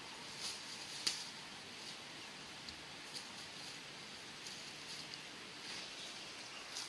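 Faint footsteps crunching through dry leaf litter, a few scattered crunches over a steady background hiss.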